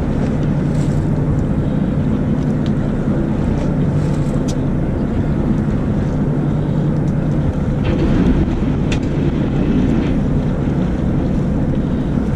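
Fishing charter boat's engine running with a steady low drone, with a few light knocks and clicks on top.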